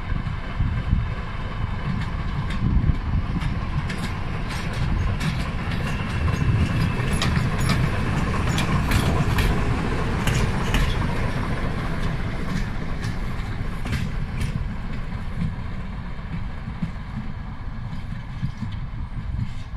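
BDŽ class 55 diesel-hydraulic shunting locomotive running light past at close range, its diesel engine rumbling steadily. The sound grows loudest about halfway through as it passes, with a run of sharp clicks from its wheels over the rail joints, then eases as it moves away.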